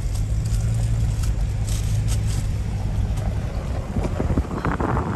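4x4 pickup's engine running steadily under way on a rough track, heard from inside the cab. About four seconds in, a louder rushing wind noise buffets the microphone.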